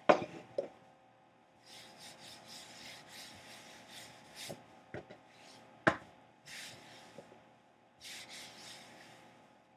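Rolling pin rolled over pastry dough on a work surface in several rough, rubbing passes, with a few sharp knocks, the loudest about six seconds in.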